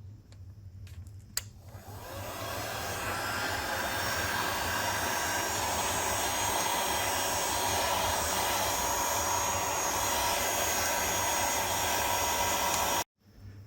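Hot-air blower clicked on and spinning up, then blowing steadily to warm the phone screen's edge and soften its adhesive before prying; it cuts off suddenly near the end.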